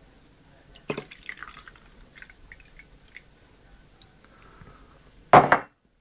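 Water poured into a drinking glass, with a clink about a second in followed by splashing and trickling. A short loud knock comes near the end, and then the sound cuts off abruptly.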